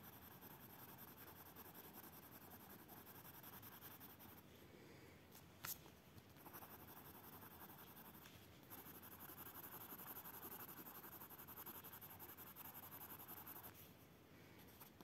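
Faint scratchy rubbing of a Lyra Rembrandt Splendor colourless blender pencil worked back and forth over a layer of pink coloured pencil on paper. The strokes pause briefly with a small click about five and a half seconds in, come back a little stronger about six and a half seconds in, and stop near the end.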